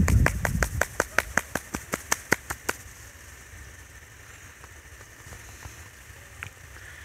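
A quick, even run of sharp clicks, about five a second, stopping a little under three seconds in, with a low rumble under the first half second. After that only a faint steady hush remains.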